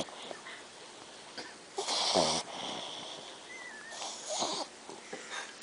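A dog snoring ridiculously loud in its sleep: two long snores about two seconds apart, the first a little under two seconds in and the louder of the two.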